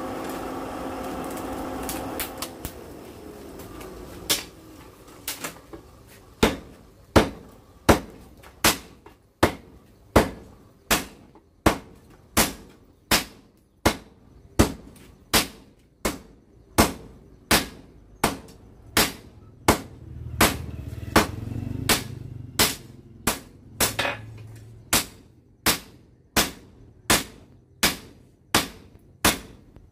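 Blacksmith hand-hammering a glowing blade of ball-bearing steel on an anvil: a long, steady run of sharp strikes, about three every two seconds, starting a few seconds in. Before the strikes begin there is a steady droning hum.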